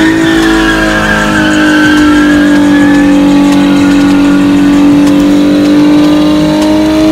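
A car's engine held at high, steady revs during a burnout, with tyres squealing against the pavement. The pitch sags a little mid-way and climbs again near the end.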